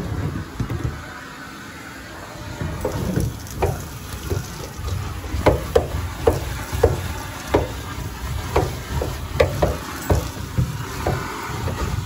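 Dirt Eater industrial vacuum hose sucking up roof-cavity dust and debris between ceiling joists, with a rough low rumble. From about three seconds in, sharp clicks and rattles come irregularly, about one or two a second, as debris is drawn into the nozzle and hose.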